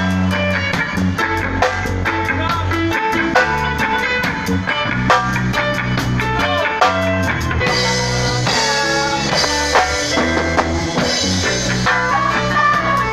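A live band rehearsing: electric guitars and bass guitar playing over a steady beat. The sound grows fuller and brighter from about eight seconds in.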